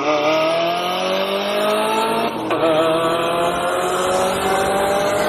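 Car engine accelerating hard through the gears, its pitch climbing steadily, with two quick upshifts: one right at the start and one about two and a half seconds in.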